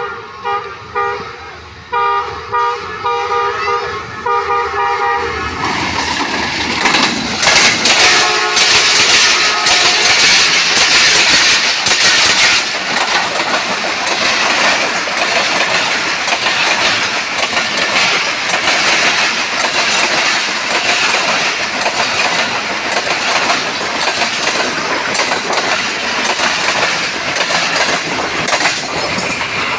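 ZCU-30 diesel locomotive sounding its horn, one blast and then a string of short rapid toots, as it approaches. It then thunders past at speed with another horn blast, followed by passenger coaches rushing by with steady wheel clatter on the rails.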